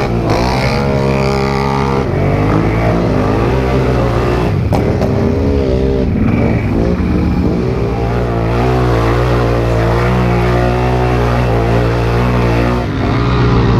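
Several Can-Am ATV engines revving up and down, the pitches rising and falling and overlapping, over a steadier low engine note as the quads churn through mud.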